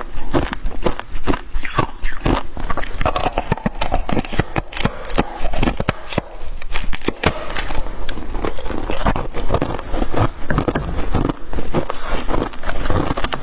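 Freezer frost being bitten and chewed, a dense run of crisp crunching and crackling with some scraping, without pause.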